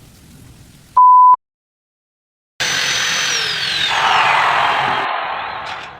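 A short, steady electronic censor-style beep about a second in, cut off into dead silence. Then a power tool starts abruptly with a loud hissing whine whose pitch falls, fading near the end.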